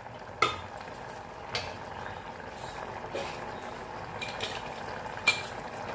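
A steel ladle stirring a watery dal-and-sponge-gourd curry in an open pressure cooker, knocking against the pot a few times, over the steady bubbling hiss of the simmering curry.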